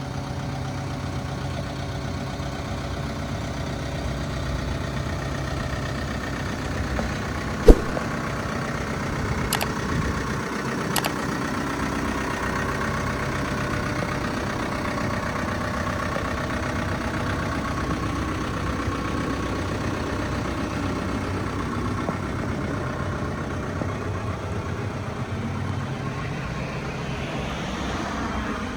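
Hitachi ZX75UR-3 compact excavator's diesel engine running steadily, with one sharp loud knock about eight seconds in and two lighter clicks soon after.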